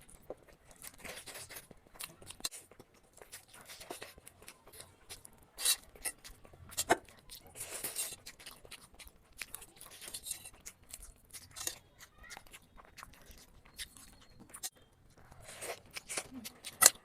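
Close-miked eating of biryani: irregular wet chewing and crunching with short sharp clicks and scrapes, the loudest just before 6 s, near 7 s and at the very end.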